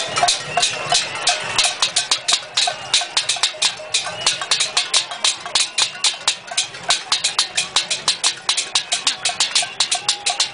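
Metal cooking pots and pan lids beaten with spoons by several people, a fast, rhythmic clatter of metal strikes: a cacerolada pot-banging protest.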